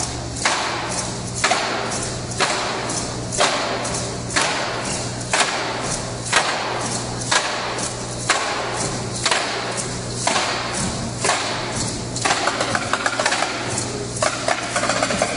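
Stomp-style percussion on plastic buckets, lids and drums: a loud hit about once a second, each with a long ringing wash, breaking into a fast flurry of hits about twelve seconds in.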